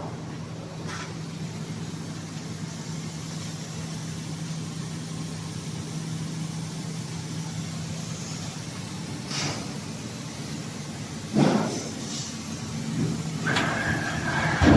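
Two-spindle PCB drilling machine running: a steady machine hum with a low tone, broken by a few short sweeping noises, and a higher steady tone near the end.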